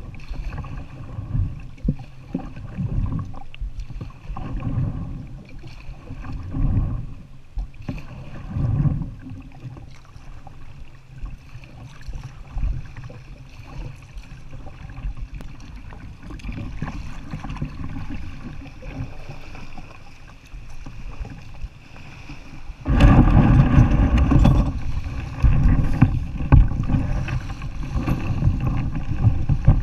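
Ocean Kayak Trident 13 sit-on-top kayak being paddled across calm sea, with water sloshing and splashing at the hull and some wind on the microphone. About 23 seconds in the sound turns suddenly much louder and rougher as the kayak runs in through the wash onto a shingle beach.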